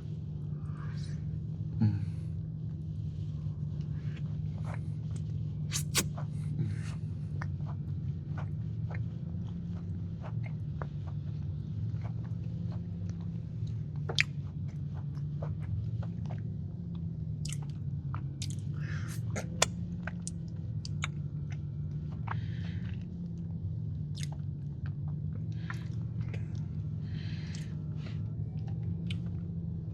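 Close-miked chewing of a soft, gooey chocolate cake batter cookie: wet mouth clicks and smacks scattered throughout, over a steady low hum.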